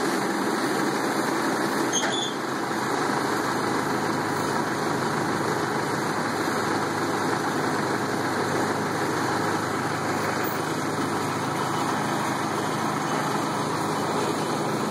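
Mercedes L508D tow truck's diesel engine idling steadily, with one brief click about two seconds in.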